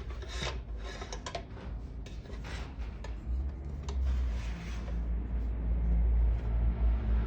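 Rustling, scraping and small clicks of items being handled, then from about halfway a low rumble that swells and grows louder.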